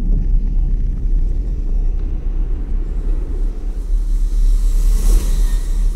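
Steady low rumble of a battery-powered wooden toy train rolling over wooden track, picked up by a camera riding on it, with a brief brighter hiss about five seconds in.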